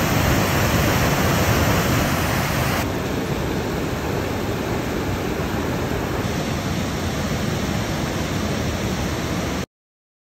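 Tahquamenon River's Lower Falls cascade and rapids rushing: a steady, loud rush of whitewater, a little quieter after about three seconds, cutting off abruptly near the end.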